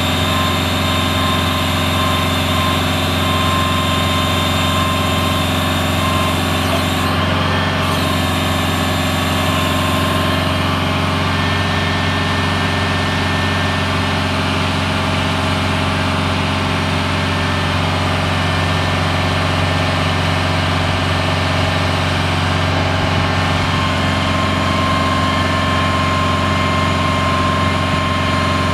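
The Detroit Diesel 8V92 two-stroke V8 of a 1984 Oshkosh M977 HEMTT truck running steadily at idle while its hydraulic crane boom is retracted and swung in, with a steady whine above the engine.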